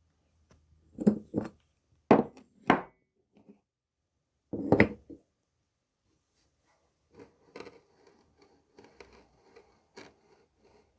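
A series of sharp knocks from hard objects being handled and set down, five clear ones in the first five seconds, followed by fainter clicks and rubbing.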